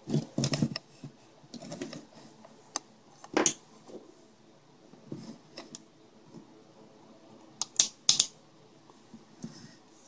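Irregular clicks, taps and rustling from hands handling a digital multimeter, its probe leads and an opened plastic GPS housing, with a close pair of sharper clicks about eight seconds in.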